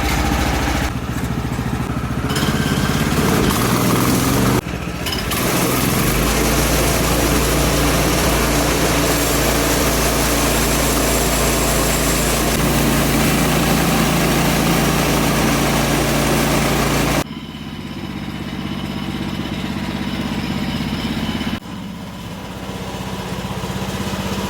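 Woodland Mills HM126 bandsaw mill with its 14-horsepower engine running. For about ten seconds in the middle the sound turns louder and fuller, with the band blade cutting through an ash log under load. The sound jumps abruptly several times, as between edited clips, and drops to a quieter engine run for the last several seconds.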